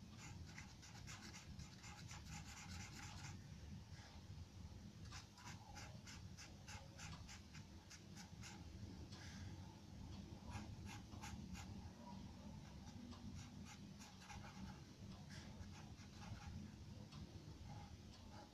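Charcoal pencil scratching on paper in quick, short shading strokes: a dense run for the first few seconds, a brief pause, then more runs of strokes. A faint low room hum sits underneath.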